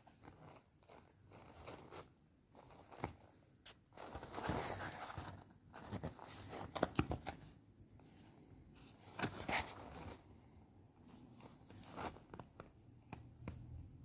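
Cardboard box rustling, scraping and crinkling in irregular bursts as a kitten squirms inside it, with a few sharp clicks; the loudest bursts come in the middle.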